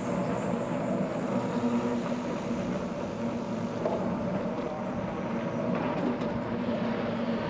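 Steady riding noise from a moving bicycle: tyres rolling on asphalt, with a low, even hum.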